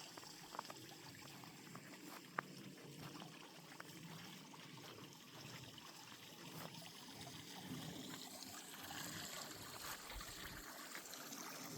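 Faint, steady trickle of moving water in a goldfish pond that has not frozen over, with a few light ticks in the first seconds.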